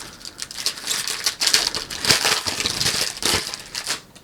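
Crinkling and tearing of a trading-card pack's foil wrapper being opened by hand, a dense crackle that stops near the end.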